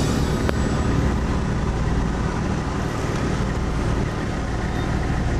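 Four-wheel-drive vehicle driving slowly over a rough dirt track: a steady, low engine and road rumble.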